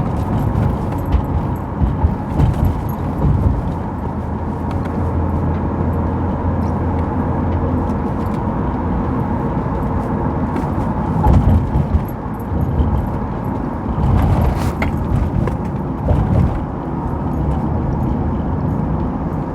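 Car cabin noise while driving: a steady low rumble of engine and tyres, with occasional light knocks and rattles.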